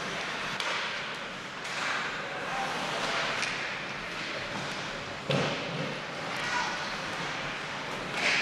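Ice hockey play sounds: skate blades scraping the ice and the clack of sticks and puck, with faint shouts. A sharp thud about five seconds in is the loudest sound, and another comes near the end.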